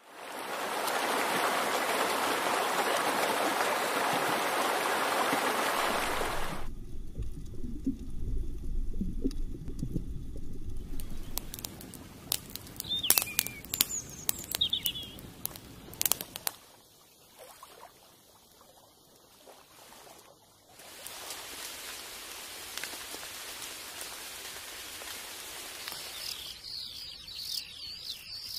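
A run of nature sounds: a steady rushing noise for the first six seconds, then a campfire crackling and popping with a few bird chirps, and high trilling birdsong near the end.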